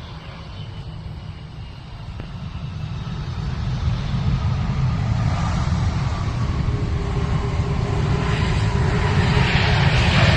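Airliner's engines: a low rumble with a faint steady whine, growing steadily louder.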